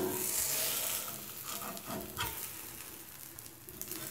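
Egg omelette sizzling in oil on a flat tawa, loudest in the first second, with a steel spatula scraping under its edges a few times.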